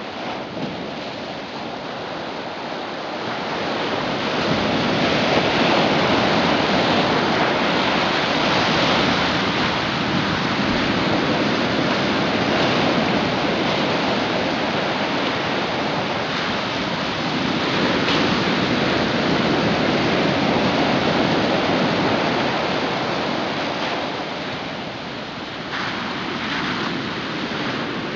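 Ocean surf and moving seawater: a steady rushing that swells louder about four seconds in and eases back near the end.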